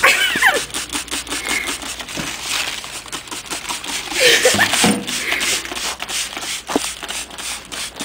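Trigger spray bottle squirting cleaner in many quick bursts onto a stainless steel drinking fountain, mixed with paper towels rubbing and crinkling against the steel.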